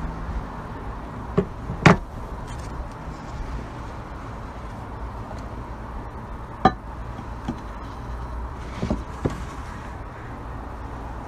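About six knocks and clunks of glass and ice on a wooden table: a glass baking dish is set down and a block of ice is placed in it. The loudest knock comes about two seconds in and a sharp one midway, over a steady low background noise.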